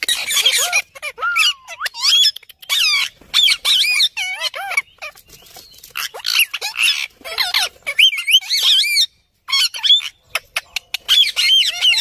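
Several rose-ringed (Indian ringneck) parakeets squawking and chattering in a rapid run of short, harsh calls, many swooping up and down in pitch.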